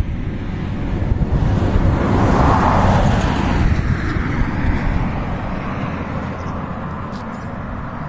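Wind buffeting the microphone out in the open, a steady low rumble, with a broad rushing swell that builds to a peak about two and a half seconds in and fades away over the next few seconds.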